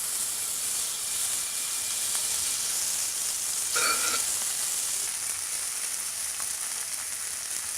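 Food frying in a hot pan: a steady sizzle, with a short squeak a little under four seconds in.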